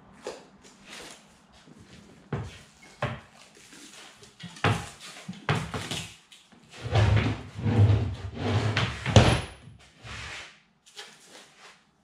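Solid red oak offcuts being gathered and stacked by hand, the pieces of wood knocking and clattering together in a run of sharp knocks. The handling gets busier and louder in the second half.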